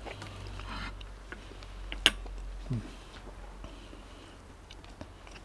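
Eating at the table: a metal fork clinks sharply once against the Dutch oven about two seconds in, followed by a brief low 'mm' and a few faint small clicks, over a steady low hum.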